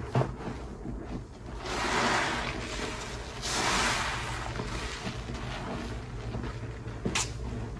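Soapy sponges squeezed by hand in thick dish-soap foam: wet squishing with crackling, fizzing foam, swelling in two long squeezes about two and three and a half seconds in, and a short sharp squelch near the end.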